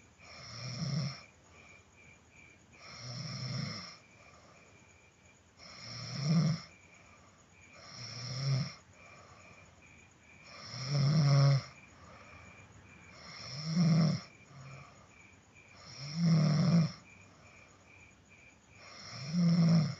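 A person snoring in a steady rhythm: a long snore about every two and a half seconds, each one building up and then stopping.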